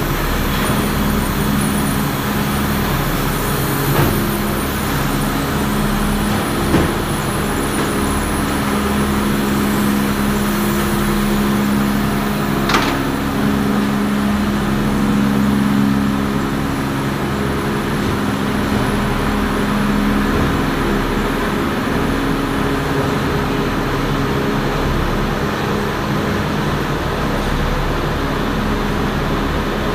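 Steady factory machinery drone with a low hum and a faint high whine, broken by a few sharp clicks or knocks.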